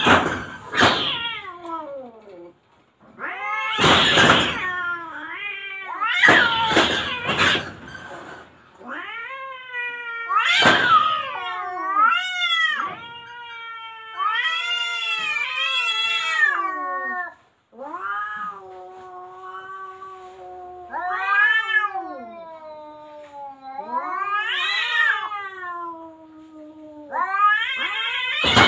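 Two cats threatening each other: long, wavering yowls and growls, broken by several sharp hisses, most in the first few seconds and again near the end.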